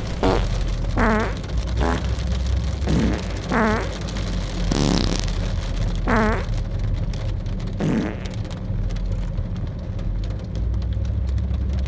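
Windshield wiper blades juddering and squealing across wet glass, a short rasping squeal on strokes every second or two, over the steady low rumble of a car driving on a wet road.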